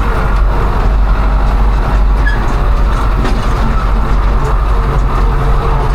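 Combine harvester running steadily under load, a loud even mechanical noise from its engine and threshing works.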